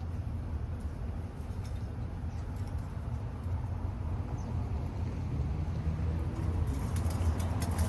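Low, fluttering rumble of wind buffeting the microphone on a hike, with crunching footsteps on gravel starting about six and a half seconds in.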